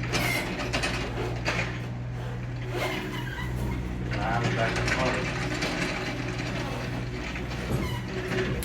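Mechanical clicking and metal clanking over a steady low hum.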